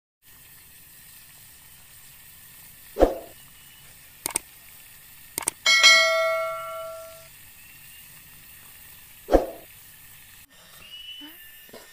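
Intro sound effects for an animated subscribe button: a thump about three seconds in, two short clicks, then a bright bell ding that rings out for about a second and a half, and a second thump near the end, over a faint steady hiss.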